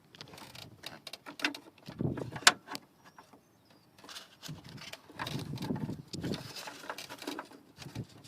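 Irregular clicks, knocks and rustling of hands working with wires and tools, with one sharp click about two and a half seconds in.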